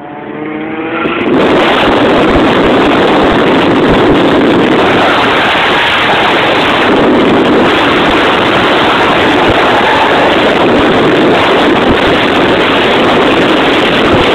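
Mazda RX-8's two-rotor rotary engine driven hard at high revs, heard from inside the cabin. It climbs steeply about a second in and then holds very loud and distorted on the camera's microphone.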